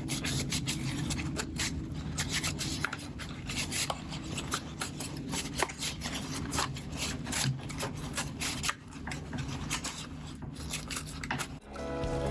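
Quick, irregular rubbing strokes on the plastic body of a Kodak Instamatic X-35 camera as plastic restorer is worked in and wiped. Background music comes in near the end.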